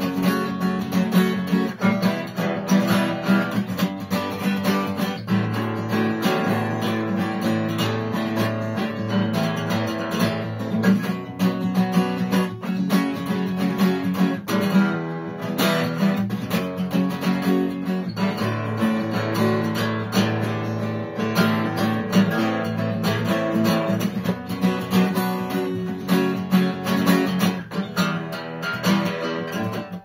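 Cutaway acoustic guitar strummed steadily in a continuous rhythm, quick down-and-up strokes over ringing chords.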